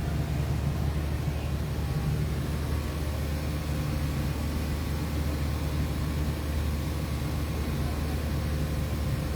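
Boat engine running steadily at cruising speed, a loud, even drone with a low hum, over the hiss of the boat moving through water and wind.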